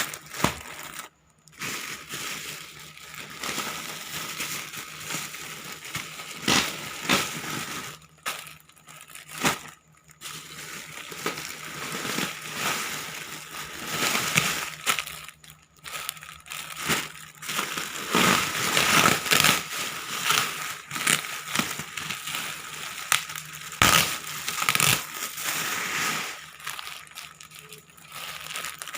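Plastic parcel packaging crinkling and rustling in irregular handfuls as it is torn open and pulled apart, with a few short pauses.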